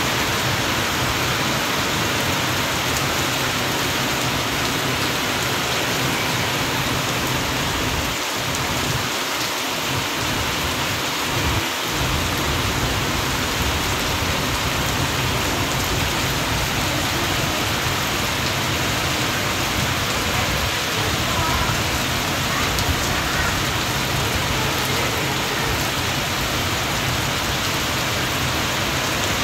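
Rain falling steadily, an even hiss at a constant level.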